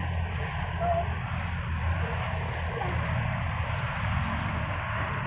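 Pet otter giving a few faint short squeaky chirps, over a steady low rumble and hiss.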